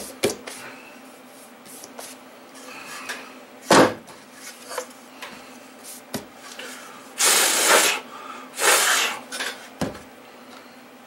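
Workbench handling noises as the Apple Disk II drive's case is moved about: a few light clicks, one sharp knock, then two short scraping rushes a second or so apart and a last click.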